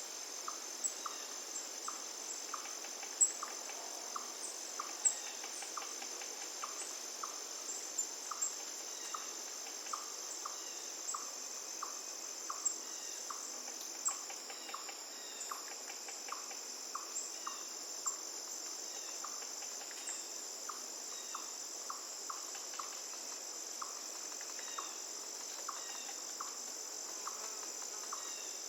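Crickets trilling in a steady, continuous high-pitched chorus, with short lower chirps repeating about once or twice a second and a few scattered sharp clicks.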